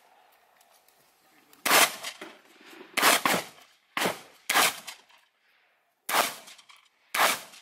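Shotgun fired six times at an uneven pace, each shot a sharp report followed by a short echo.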